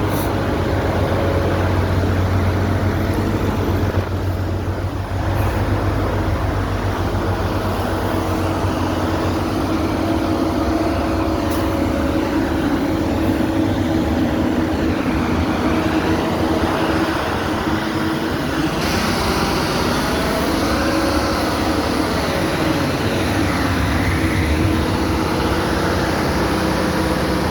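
Heavy engine of construction machinery running steadily, with its pitch wavering in the second half as it works.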